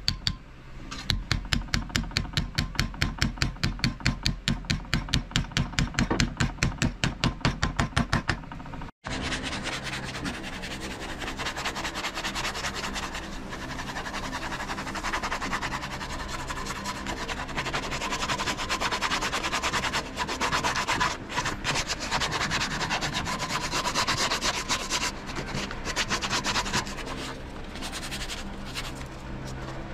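Sandpaper rubbed by hand over a wooden knife handle. First come regular strokes, about four a second. After a brief break about nine seconds in, a denser, quicker rubbing follows.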